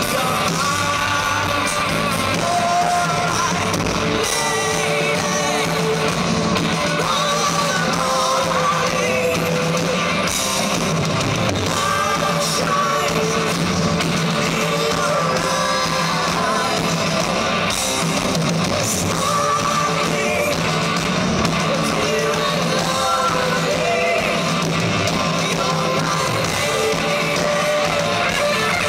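A rock band playing live: a man singing lead over electric guitars, bass guitar and drums, loud and continuous.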